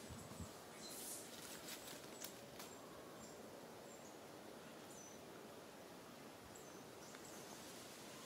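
Quiet outdoor ambience: a faint steady hiss with a few brief high chirps, and several soft clicks and rustles in the first three seconds.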